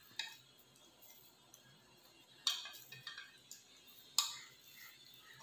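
Hands kneading soft dough in a stainless-steel bowl, with a few sharp clinks against the metal bowl: three clear ones, near the start, about halfway and about four seconds in, and quiet handling between.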